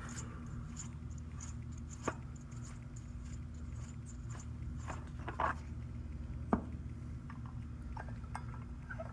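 A few light metallic clicks and clinks as the clutch fan is spun by hand off the threaded water pump hub of a GM LS V8, over a steady low hum: one sharp click about two seconds in, more around five seconds and another near six and a half.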